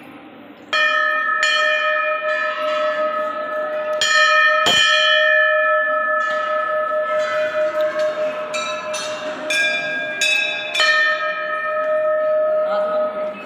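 Temple bell rung over and over, starting about a second in: a string of strikes, each ringing on into the next.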